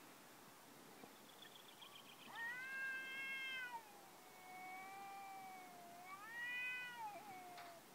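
Two domestic cats caterwauling at each other in a territorial standoff. Long, drawn-out yowls rise and fall in pitch, with a lower, steadier wail between the two loudest.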